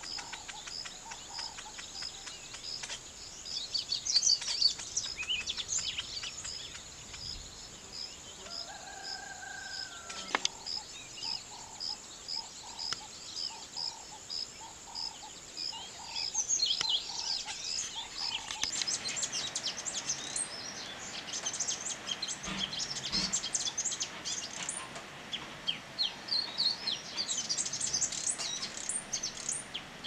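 Weaver birds chirping and chattering, with a regular high pip repeating about every half second through the first half over a steady high hiss. From a little past halfway the chattering grows dense and busy.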